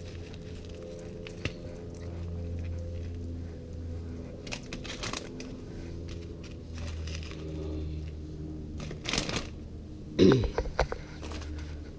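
Plastic Ziploc bag and packaging crinkling and rustling as whole herring are handled and put into the bag of brine, with scattered clicks and a louder rustle and knock about ten seconds in, over a steady low hum.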